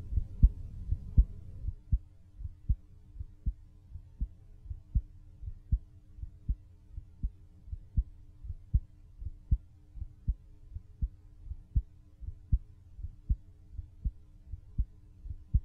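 A person's heartbeat, picked up by a studio microphone half a foot from the body: a steady, regular run of sharp clicks over a faint steady hum. The first couple of seconds are louder, then the level drops as the recording level is turned down.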